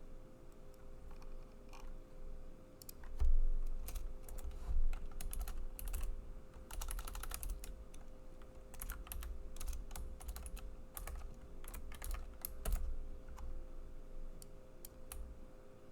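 Typing on a computer keyboard: scattered keystrokes and several quick runs of clicks while code is edited. Two low thumps come about three and five seconds in.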